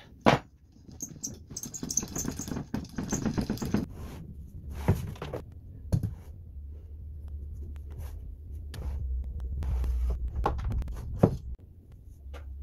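Cordless driver running for about three seconds as it drives a fastener into a plywood handwheel, followed by a few separate knocks of wooden parts being handled.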